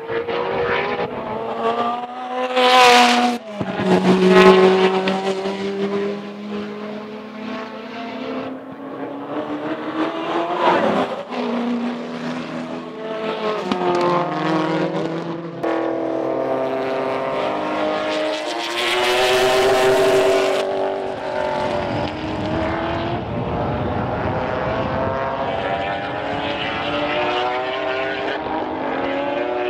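Racing sports sedan and GT car engines at full throttle, pitch climbing and dropping back again and again as they rev through the gears. The sound changes abruptly several times, with two loud rushes of noise, about three seconds in and around twenty seconds in.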